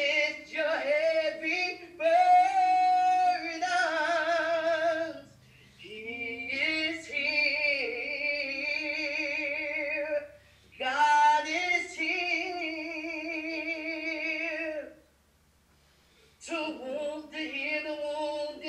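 A woman singing solo and unaccompanied, in long held notes with a strong vibrato, phrase by phrase with short breaks for breath.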